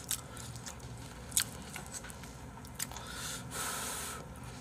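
Eating sounds: chewing, with a few sharp clicks of chopsticks against a bowl, and a long breathy rush of air about three seconds in.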